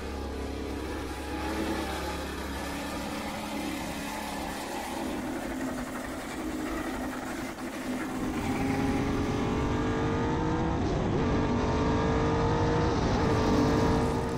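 Engine of the 1981 Alfa Romeo 179C Formula 1 car, a 3.0-litre V12, running with a steady low drone at first. Then it gets louder and its pitch climbs slowly twice as the revs rise.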